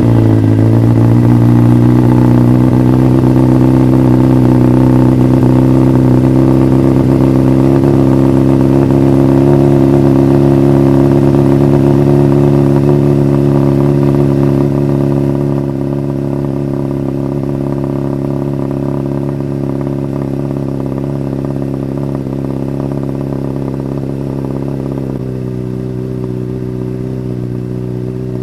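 2008 Honda CBR600RR's inline-four engine idling through a Two Brothers carbon slip-on exhaust, just started. The idle settles a little lower in the first second or two, then holds steady, and it becomes quieter about halfway through.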